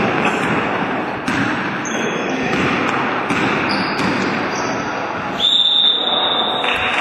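Basketball game in a gym hall: a ball bouncing and sneakers squeaking on the wooden floor over the constant din of the hall. About five seconds in, a referee's whistle blows for about a second, stopping play.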